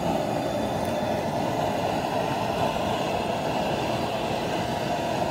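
Outdoor propane cooker burner running under a large pot of water at a rolling boil: a steady, even rushing noise.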